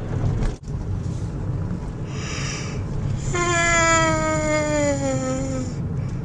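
A man yawning aloud: a breathy intake, then one long drawn-out vocal yawn that slowly falls in pitch, over the steady low road rumble inside a moving car.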